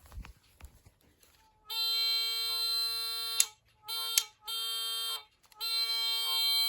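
LEGO train horn playing an electronic train-horn sound through its small speaker, after a few faint clicks: one long horn note, two short blasts, then another long note that carries on. Sharp clicks come as the first two notes end.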